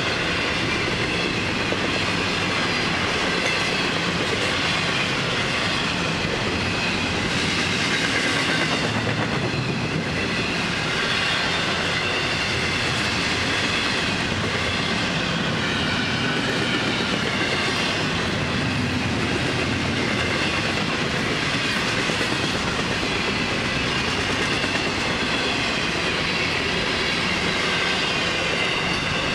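Long intermodal freight train's container-laden well cars rolling steadily past, steel wheels running on the rails with a wavering high-pitched whine over the rumble.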